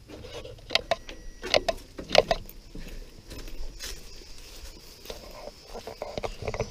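Footsteps on gravelly, gritty ground, about one step every two-thirds of a second, loudest over the first couple of seconds and softer after.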